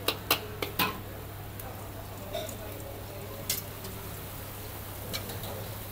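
Metal spatula knocking and scraping against a steel wok as noodles are stir-fried: several sharp strokes in the first second, then single ones about midway and near the end. A steady low hum runs underneath.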